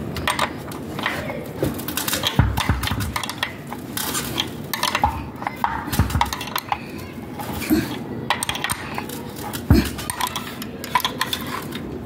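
Open-end steel wrench clinking against the bolts and metal flange of an electric water heater's heating element as the bolts are tightened: a run of irregular metallic clicks and taps, with a few duller knocks.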